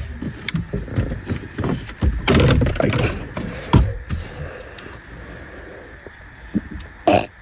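Plastic interior trim being pried out of a car's dash: irregular clicks, knocks and scraping of the trim and its clips, busiest about two to three seconds in, with a sharp knock near the end.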